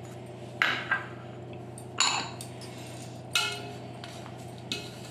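Stainless steel mixing bowl knocked and rubbed by hands mixing a dry flour, semolina, coconut and nut mixture. There are several sharp clinks that ring briefly, over a low steady hum.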